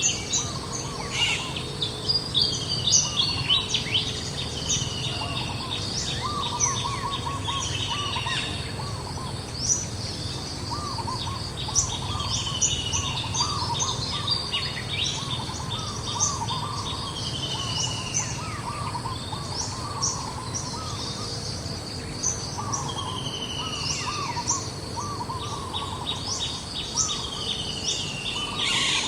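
Several birds calling at once in a dense outdoor chorus: repeated short descending whistles, quick clustered lower chirps and high twitters, over a steady low background hum.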